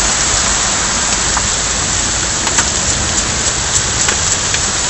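Heavy rain pouring down in a storm: a steady, loud hiss of rainfall with scattered sharp drop ticks.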